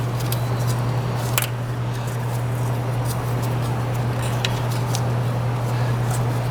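Steady low background hum with a few light, sharp clicks as the thermostat sensor's wiring harness is moved aside in the engine bay, one click about a second and a half in and two more near the end.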